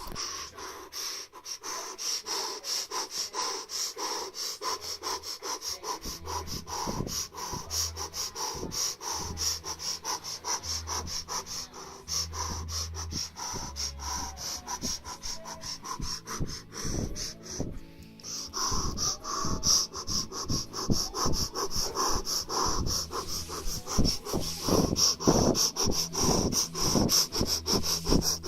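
A person breathing heavily in quick, rhythmic strokes, mixed with music whose low bass notes come in about six seconds in.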